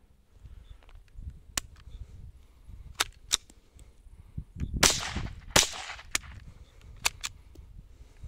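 Two shots from a Marlin Model 70 semi-automatic .22 LR rifle, about three-quarters of a second apart, each sharp crack trailed by a short echo. Several lighter sharp clicks come before and after the shots.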